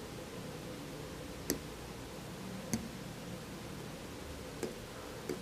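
Four short, sharp clicks spread over about four seconds from a computer pointing device picking items from an on-screen menu, over a low steady room hum.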